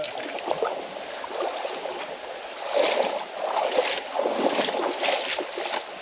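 Mountain stream running, with a few louder irregular bursts over it in the second half.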